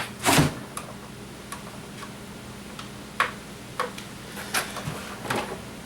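A box of scrap steel parts being handled on a scale for weighing: a knock right at the start, then a few scattered light clicks and taps.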